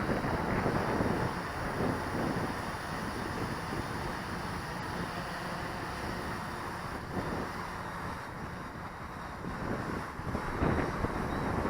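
Gusty wind buffeting the microphone: a rough, rumbling rush that swells and eases in gusts.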